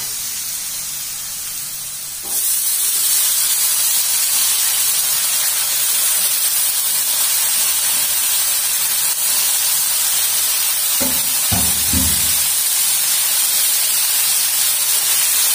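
Water spinach (kangkung) sizzling in a pot of hot oil with sautéed shallots, garlic and chilli. The hiss steps up sharply about two seconds in as the greens go in, then runs on steadily while they are stirred with a ladle.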